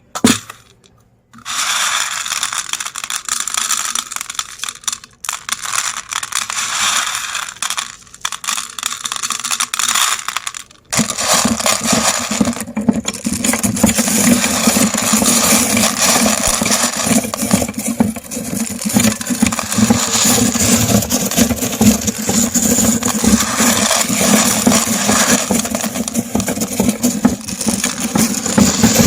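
Candies clattering and rattling in a meat grinder, with several short pauses. About eleven seconds in, the grinder's electric motor starts with a steady hum and runs on, grinding and crunching the candy.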